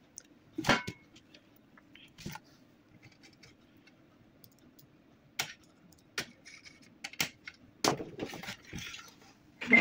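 Scattered clicks and light knocks of a printer's plastic and metal parts being handled and fitted, with a faint steady hum underneath.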